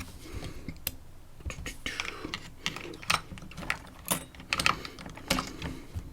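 Small metal tools handling a Stanley padlock: irregular light clicks and taps, several a second, like a key or hex key being fitted and fiddled against the lock body.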